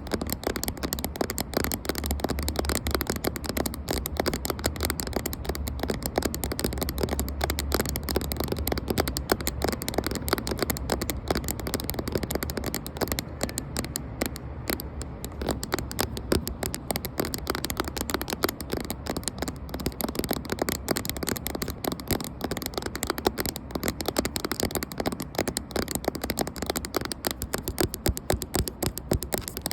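Rapid, dense tapping on a camera body and lens, many light taps a second without pause, with a low rumble under the first few seconds.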